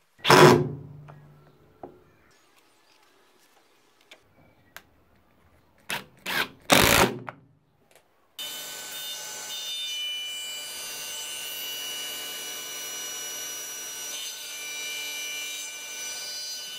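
A few short, loud swishing scrapes, one about half a second in and three close together around six to seven seconds, then a table saw running steadily from about eight seconds in as a hexagonal totara bowl blank is fed through it on a sled.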